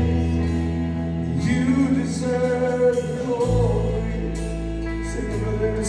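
Live worship band playing: electric and acoustic guitars with a drum kit, cymbal strokes recurring. The low bass drops to a deeper note about three and a half seconds in.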